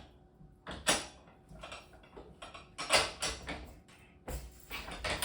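Floor loom being worked by hand: sharp wooden clicks and knocks of the mechanism as the warp is advanced, with a quick run of clicks near the end.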